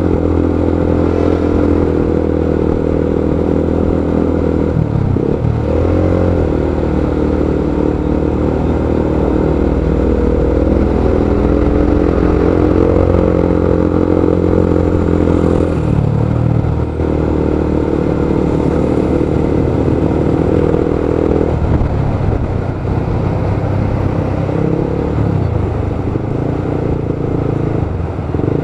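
Motorcycle engine running as it rides in slow, jammed traffic. Its pitch holds steady for stretches and shifts a few times as the throttle changes.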